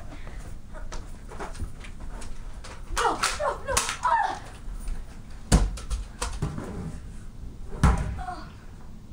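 Kids scuffling: a voice shouts or yelps without words about three seconds in. Then come two loud thumps, about two and a half seconds apart, the second as a person drops heavily to the floor.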